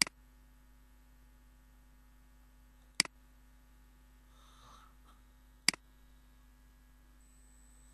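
Three sharp computer mouse clicks, the second about three seconds after the first and the third about two and a half seconds later, each followed at once by a softer second tick, over a faint steady hum.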